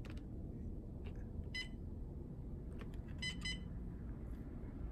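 Humminbird Helix 7 fish finder's key-press beeps as its buttons are pressed: three short, high electronic beeps, one about a second and a half in and a quick pair a little after three seconds, over a faint low hum.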